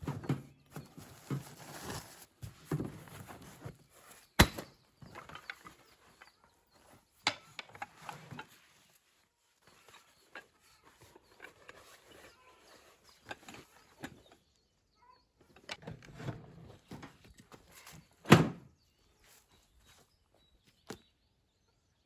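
Irregular rustling and handling noises with scattered knocks, two of them sharp and loud, about four seconds in and near eighteen seconds in.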